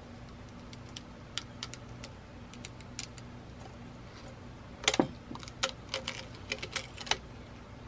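Small metal clicks and taps of tools and camera parts being handled, scattered and light at first, with a louder cluster of clicks about five seconds in and a few more just after. A low steady hum runs underneath.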